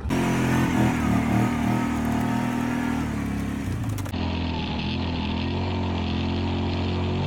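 Kawasaki Brute Force ATV engine running while being ridden, its pitch rising and falling over the first few seconds, then holding steadier after an abrupt change about four seconds in.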